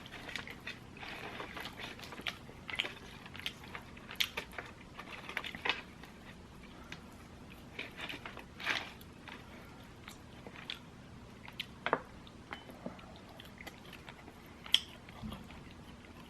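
Close-miked eating of fried chicken: irregular crunchy bites and chewing, with short crackling sounds scattered throughout.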